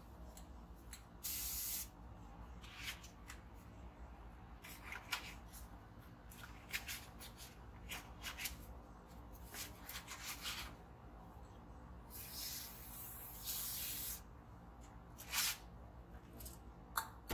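Aerosol spray can hissing in two bursts, a short one about a second in and a longer one of about two seconds near twelve seconds, with short rustles of cardboard and small handling clicks in between.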